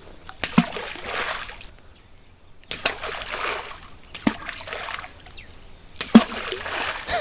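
Lumps of groundbait thrown into a shallow stream, each landing with a splash: four splashes, one every one and a half to two seconds.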